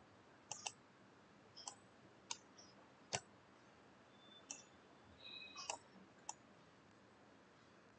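Faint computer mouse button clicks, about eight of them at irregular intervals, with the sharpest just past the middle.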